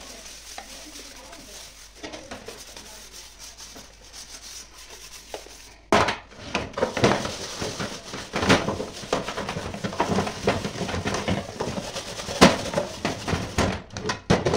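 Soapy sponge scrubbing stainless steel pot lids and trays, with metal clinks and clatters as the pieces are handled. Quiet at first, it gets louder and busier about six seconds in, with a few sharp knocks.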